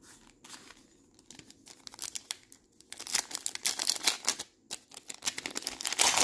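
Foil trading-card pack wrapper being torn open and crinkled by hand, starting about two seconds in and loudest near the end.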